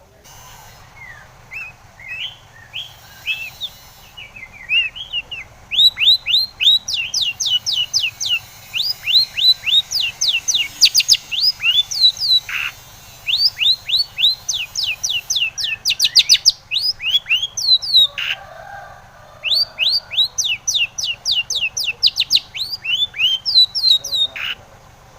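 Long-tailed shrike (cendet) singing: strings of sharp, downward-sliding chirps, soft and scattered at first, then from about six seconds in loud, rapid runs of many notes broken by a couple of short pauses.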